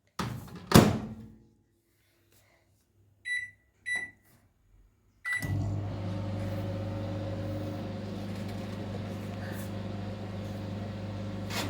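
Microwave oven being started: a clunk, then two short keypad beeps and a third beep about five seconds in. The oven then starts running with a steady low hum and fan noise as it begins heating the popcorn.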